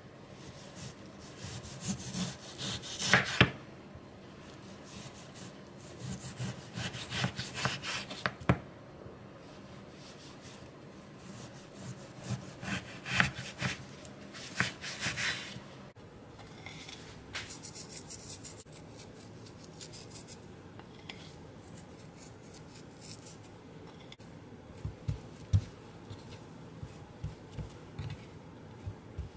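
Kitchen knife sawing through raw pork loin in three bouts of strokes, each ending with sharp knocks of the blade on a bamboo cutting board. After that come softer, scattered taps and a few low knocks.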